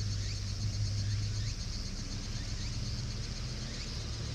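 Outdoor ambience: a steady low hum under a high, pulsing chirring, with short rising chirps repeating less than a second apart.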